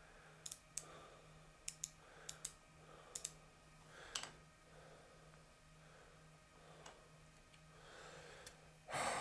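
A large micrometer being fitted and adjusted across the end of a milled steel bar: scattered light metallic clicks, some in quick pairs, over a faint low hum.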